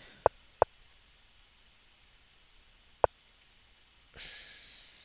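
Three sharp clicks, two close together near the start and one about three seconds in, each stepping the analysis-board chess position forward one move. Near the end, a short breath in through the nose.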